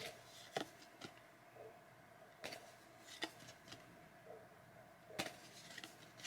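Faint handling of Pokémon trading cards: a scattering of soft clicks and flicks, several seconds apart or closer, as cards are slid from the pack and shuffled one behind another.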